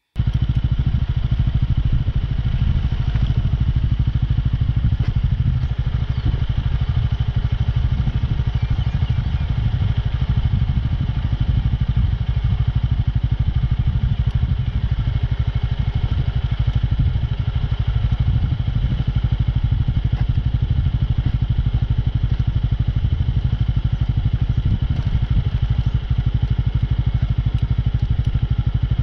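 Motorcycle engine running at a steady speed while riding, a loud, even sound with a deep pulsing rumble.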